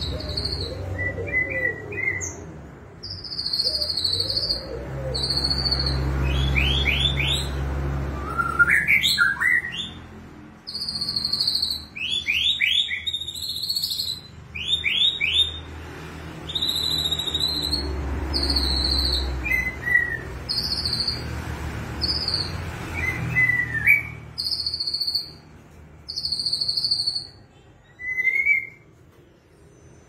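Caged white-rumped shama singing vigorously: a long run of varied clear whistled phrases and quick falling trills, repeated with short pauses, in a song trained with cililin phrases. A low rumble sits underneath at times.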